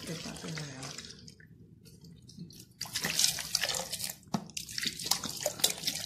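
A hand splashing and sloshing through churned cream and icy buttermilk in a metal bowl, gathering the freshly separated butter. It is faint for the first couple of seconds, then wet splashing with sharp clicks from about three seconds in.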